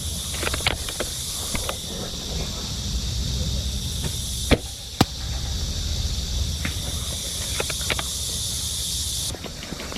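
A steady high hiss with scattered light clicks, and two sharp cracks about half a second apart near the middle; the hiss cuts off abruptly near the end.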